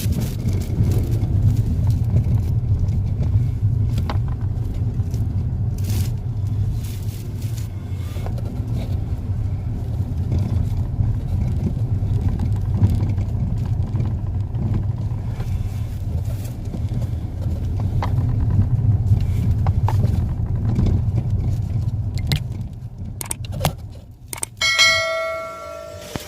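Car driven over a rough road, heard from inside: a steady low road rumble with scattered knocks and rattles, which the mechanic traces to a worn steering column housing that needs replacing. Near the end the rumble dies down and a few short ringing tones sound.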